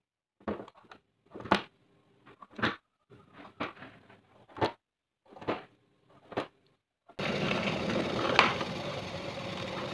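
A pointed marking tool scratching short marks into plywood, about one a second. About seven seconds in, a bench drill press motor starts and runs steadily, with one sharp click a second later.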